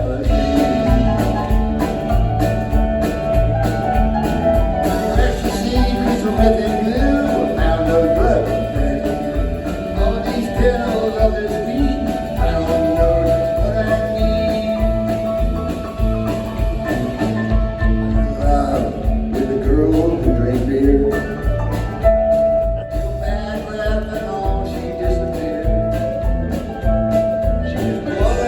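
Live rock band playing a song, with a steady drum beat under bass, guitars and a sustained held note.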